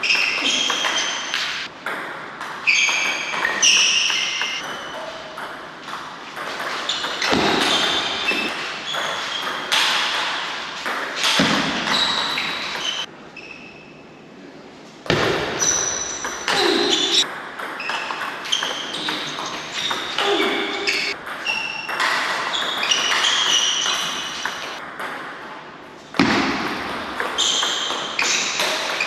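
Table tennis ball clicking rapidly off bats and table in rallies, each hit with a short ringing ping and echo in a large hall. Two brief lulls between points.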